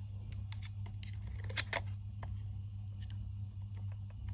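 Small plastic clicks and handling noise as the speaker and siren module is worked loose and lifted out of a Ring Floodlight Pro's plastic housing, a couple of sharper clicks about halfway through, over a steady low hum.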